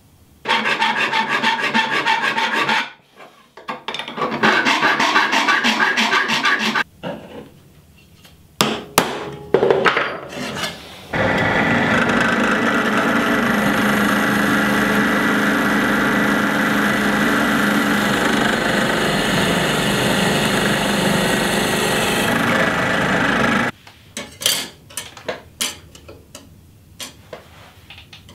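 Thin steel sheet being sawn with a fine blade. There are two spells of quick rasping strokes, then a few sharp clicks, then about twelve seconds of steady cutting, ending in scattered taps.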